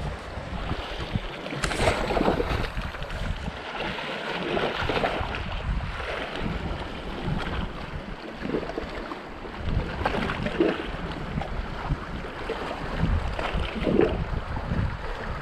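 Sea waves washing against shoreline rocks in irregular surges, with wind buffeting the microphone.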